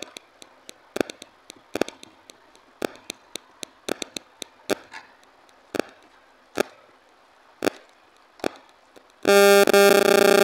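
Eating by hand from a steel plate: scattered sharp clicks and taps, one or two a second, as rice and dal are mixed with the fingers and chewed. Near the end a loud electronic synthesizer tone sounds for about a second and a half and is the loudest thing.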